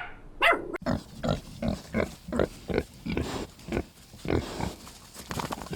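A pig grunting over and over in short, low grunts, about three a second.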